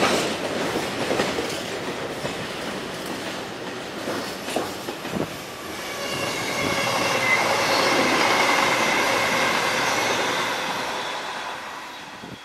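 Freight train's loaded car-carrier wagons rolling past and away, wheels clicking over rail joints. From about six seconds in, a high steady wheel squeal rises over the rumble, then fades near the end.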